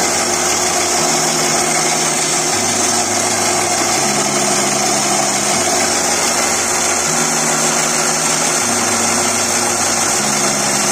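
Electric motor of a home-built electric motorbike conversion running and driving the chain, a steady whirring hiss over a low hum that steps up and down in pitch about every one and a half seconds.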